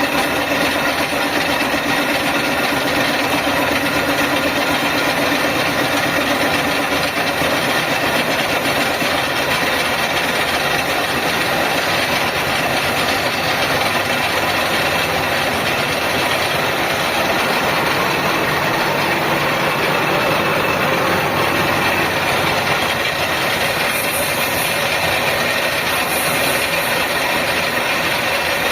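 Facing and centering machine running steadily: a dense, even mechanical noise with several steady whining tones.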